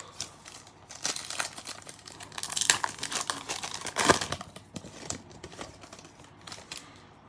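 A trading-card pack wrapper being torn open and crinkled by hand: a dense run of crackling and tearing, loudest in the middle, that thins out and fades over the last couple of seconds.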